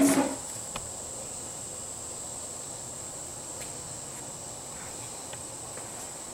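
A steady high-pitched whine over faint background hiss, with a short clatter right at the start and a few faint ticks later.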